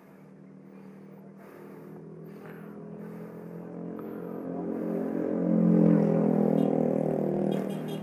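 A vehicle engine drawing near at a steady pitch, growing gradually louder to its loudest about six seconds in, then easing off slightly as it passes. A few short high chirps come and go.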